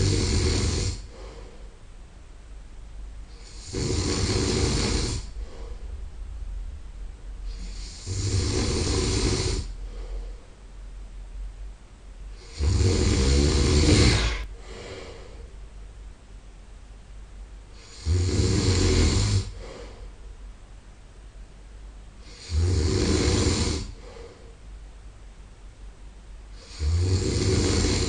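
Man snoring in his sleep: a loud snore about every four and a half seconds, each lasting over a second, with quieter breathing between them.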